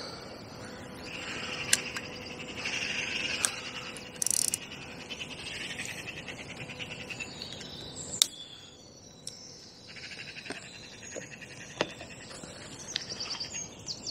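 Songbirds singing and trilling in a dawn chorus, with a few sharp clicks and knocks of fishing tackle being handled.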